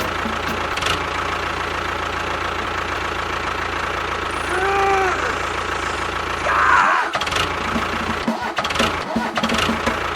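Small motor running steadily, with a brief rising-and-falling tone about halfway through and a short louder burst near seven seconds.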